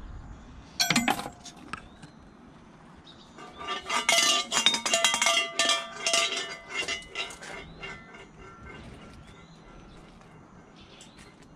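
A coin dropped into a wooden shrine offering box lands with a sharp clink about a second in. From about three and a half seconds in, the shrine's suzu bell, a metal bell with loose pellets, jingles and rattles for about four seconds as its hanging rope is shaken, then stops.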